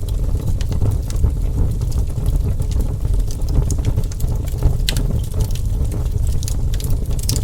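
Wood fire burning with a steady low rumble and scattered sharp crackles and pops, a couple of louder snaps about five seconds in and near the end.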